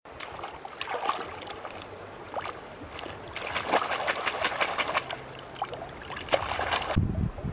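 Water splashing and sloshing in quick, irregular bursts. About seven seconds in it changes abruptly to a low rumble.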